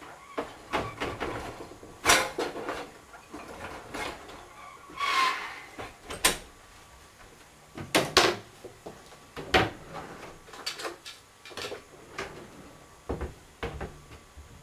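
Wooden kitchen cupboard doors and drawers being opened and shut, with a string of knocks and clatters from things being handled; the loudest knocks come about two and eight seconds in.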